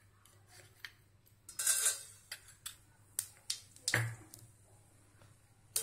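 Mustard seeds and urad dal in hot oil in a stainless steel pan: a brief sizzle, then scattered sharp pops as the mustard seeds begin to splutter.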